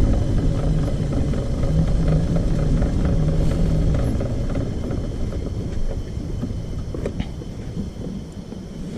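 Motor scooter riding over a rough dirt track: engine drone and a low rumble, which gets quieter after about four seconds.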